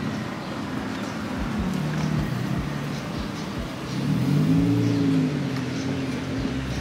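A motor vehicle's engine driving past, its pitch rising and then falling, loudest about four to five seconds in, over a steady low background hum.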